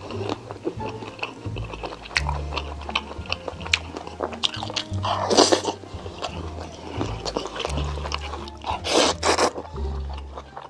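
Background music with a steady bass line over close-miked eating: chewing and small clicks, and two loud slurps of black-bean noodles (jjajangmyeon), about five seconds in and again near the end.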